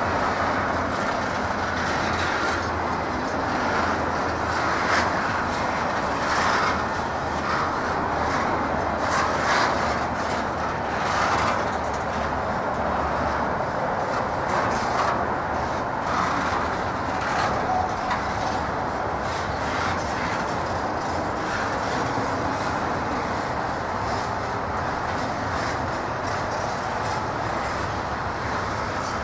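Double-stack intermodal container well cars of a Norfolk Southern freight train rolling past, a steady rumble and rattle of steel wheels on the rails.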